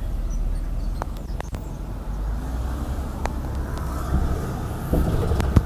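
Road and engine noise inside the cabin of a moving car: a steady low rumble with a few light clicks, and a sharp knock just before the end.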